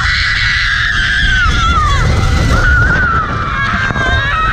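Riders screaming long and high while plunging down a water ride's drop, over heavy wind and rushing-water rumble on the camera microphone.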